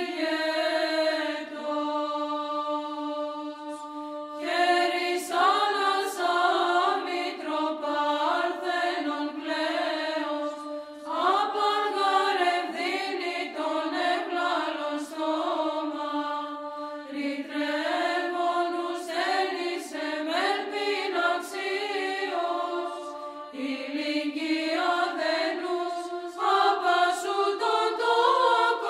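Orthodox church chant: voices sing a slow melody over a steady held drone note, in long phrases with short breaks between them.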